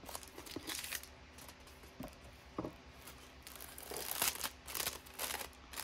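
Clear plastic packaging of a diamond painting kit crinkling as it is handled, in short irregular rustles that grow louder and denser about four seconds in, with a couple of light taps before that.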